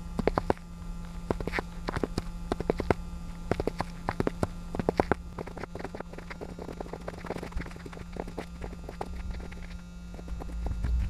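Boots tapping on snowy paving slabs in quick irregular clusters of clicks, like pseudo Morse code, thinning out after about five seconds, over a steady low hum.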